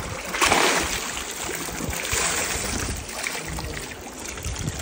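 Water pouring out of an upturned boot and splashing into a shallow river running over stones. The heaviest splash comes about half a second in, with another around two seconds.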